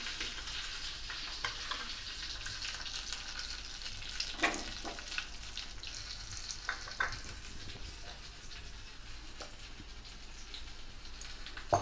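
Hot tempering oil sizzling in a small steel pan around green chillies, curry leaves and sugar, on the pan's leftover heat after the stove is switched off. A few sharp pops break through the steady sizzle, which slowly dies down.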